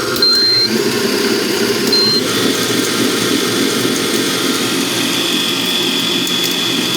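Vevor 7.4-quart, 600-watt stand mixer's motor running empty, not too noisy, with short high beeps from its digital control panel just after the start and again about two seconds in, where the running sound changes; a high steady whine joins from about five seconds in.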